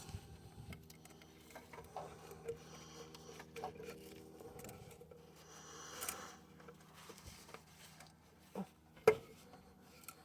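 Small handling noises from fitting a rubber radiator hose onto its pipe: light scrapes, clicks and taps, a brief rustle about six seconds in and a sharp knock about nine seconds in, over a faint steady hum.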